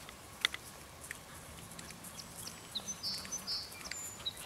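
Hoofbeats of a ridden Quarter Horse/Paint cross on grass: scattered soft thuds and clicks. A bird chirps twice about three seconds in.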